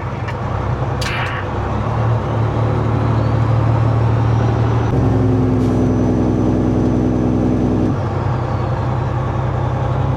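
Steady low drone of the truck's engine heard inside the cab, with a sharp click about a second in. About halfway through, a train horn sounds one blast of about three seconds, several tones at once, cutting off abruptly.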